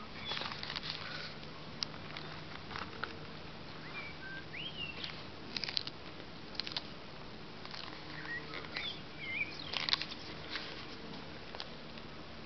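Mediterranean tortoise biting and crunching lettuce leaves close to the microphone: crisp snaps and crunches in irregular clusters, loudest near the end. Birds chirp now and then in the background.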